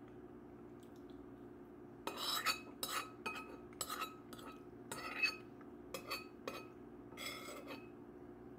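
Metal spoon scraping and clinking against a dish as food is scooped, a quick run of short scrapes starting about two seconds in, over a steady low hum.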